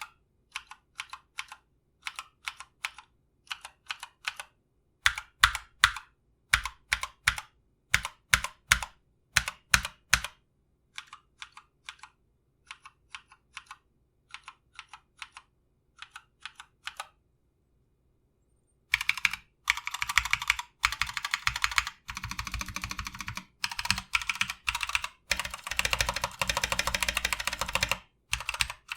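Stock, unlubed Glorious Panda tactile switches in a GMMK TKL keyboard with PBT keycaps and foam under the PCB, tapped in small groups of separate keystrokes. After a pause of about two seconds, about two-thirds of the way in, the keys are pressed in fast, dense runs.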